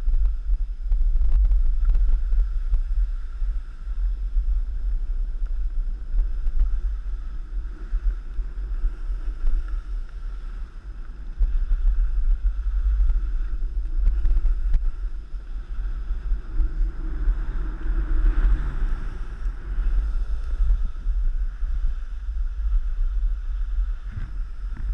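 Wind buffeting the microphone in a constant rumble that swells and eases while moving down a ski slope, with the faint hiss of sliding over the snow.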